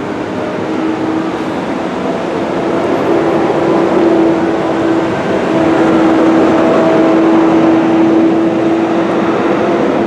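Steady vehicle engine hum with a constant drone, swelling over the first few seconds and then holding level.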